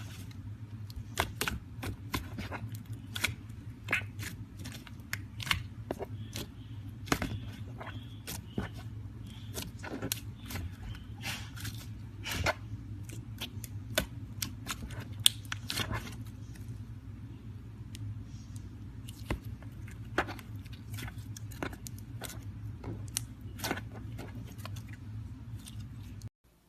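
Slime being pressed and squeezed by hand, giving an irregular run of sharp clicks and crackly pops over a steady low hum. It cuts off abruptly just before the end.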